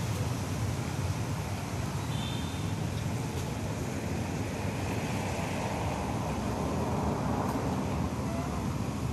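Steady outdoor background noise, a low rumble with hiss over it, with a brief high chirp about two seconds in.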